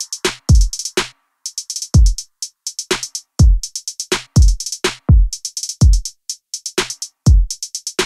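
Electronic background music: a drum-machine beat of deep kick drums that drop in pitch, with quick hi-hat ticks between them and a brief break about a second in.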